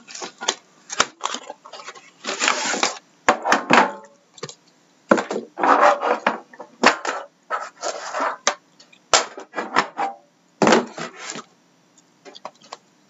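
A sealed trading-card box being unwrapped and opened by hand: plastic wrap crinkling and rustling in irregular bursts, with sharp clicks and knocks from the box lid and packaging. It gets much quieter near the end, leaving a few faint clicks.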